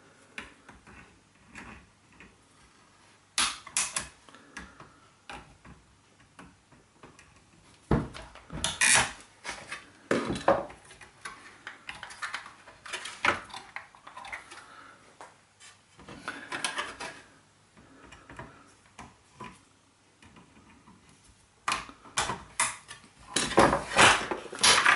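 Intermittent clicks, knocks and rattles of plastic and metal parts on a Mira Event XS power shower being worked apart by hand and with a screwdriver, prying at a clip to free the mixer valve from the pump. The clatter comes in short bursts, busiest near the end.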